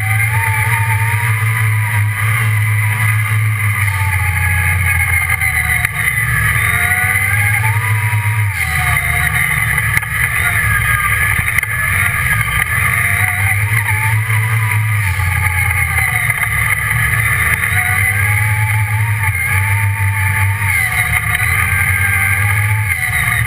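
Off-road buggy's engine running under load on a dirt track, heard from on board. Its pitch rises and falls again and again as the throttle is opened and eased off.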